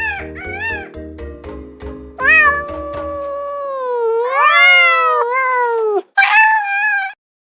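A domestic cat meowing: one long, drawn-out meow that wavers in pitch, then a shorter, higher meow. In the first two seconds, short repeated calls over background music carry on from the chicken clucking just before.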